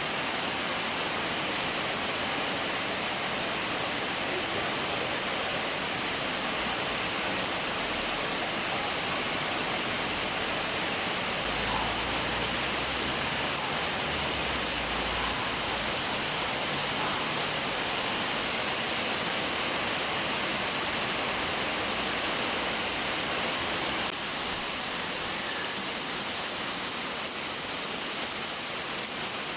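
Rain falling steadily, an even hiss, dropping slightly in level near the end.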